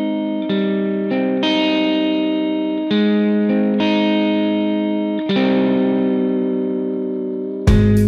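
Background music: sustained guitar chords played through effects, changing every second or so, with drums and bass coming in near the end.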